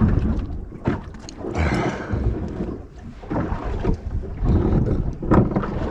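Uneven low rumble of wind and handling noise on the microphone aboard a small boat, with a few sharp knocks and a brief hiss a little under two seconds in.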